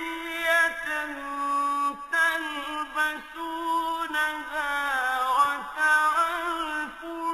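Melodic Arabic Quran recitation by a solo voice in a chanted style, drawing out long held notes with gliding, ornamented pitch turns and brief breaks between phrases.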